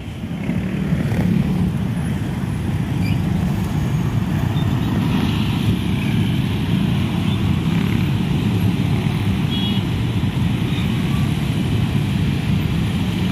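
Motorcycle and car traffic: many small engines running at once as the vehicles move off and cross, a steady low rumble.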